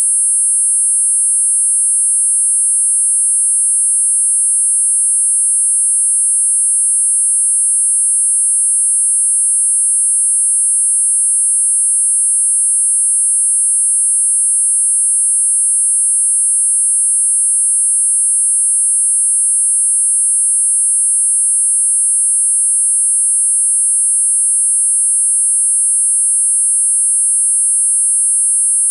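Four high-pitched electronic sine tones at 8.5, 9, 10 and 10.5 kHz sounding together, held steady without any change: a synthesized multi-tone tinnitus masker.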